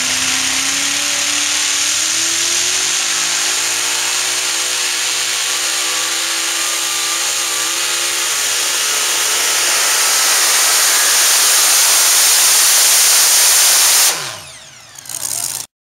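A super modified two-wheel-drive pulling truck's supercharged engine runs at full throttle while hauling the pulling sled. Its pitch climbs over the first few seconds, wavers, and then grows steadily louder. About fourteen seconds in it drops off sharply and winds down in pitch, the engine being shut off at the end of the pull.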